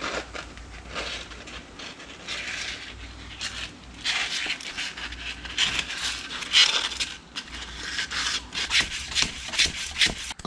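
The outer surface of a 200-4R transmission direct drum being wet-sanded by hand with a strip of 240-grit sandpaper soaked in transmission fluid, to take the glaze off. It makes a series of rasping scrapes that come faster and closer together in the last few seconds.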